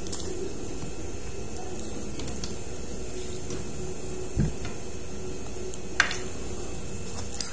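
Cooked octopus in sauce being pulled apart and handled by bare hands: faint clicks, a low thump about four seconds in and a sharp click near six seconds, over a steady background hum.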